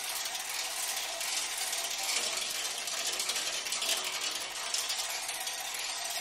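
Dense, fast scraping and rattling played on vibraphones, an even continuous texture of many small strikes and rubs with only faint brief tones underneath.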